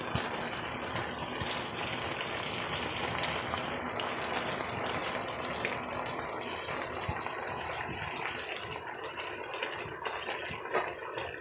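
Cabbage simmering in broth in a pot, a steady bubbling sizzle, while a wooden spoon stirs through it with a few light knocks against the pot.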